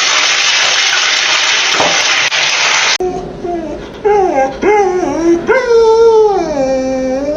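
A steady rushing noise for about three seconds, then a dog howling: several short yowls that slide up and down in pitch, ending in one long call that falls away.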